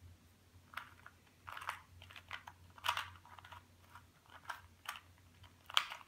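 2x2 Rubik's cube being turned by hand: its plastic layers clicking and clacking in short, irregular bursts, the sharpest click near the end.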